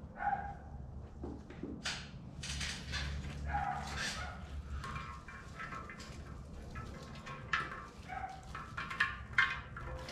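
Sliced onion being laid into a disco pan: repeated rustling and knocking of handling, with three brief high whines.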